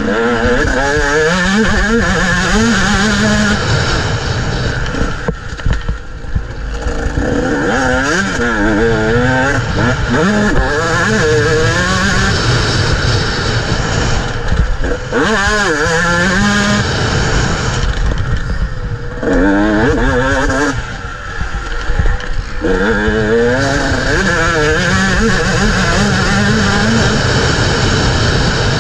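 125 cc pit bike engine under way on a dirt track, its pitch climbing and dropping in repeated surges as the rider opens and closes the throttle and shifts gears. Wind rushing over the microphone runs under the engine.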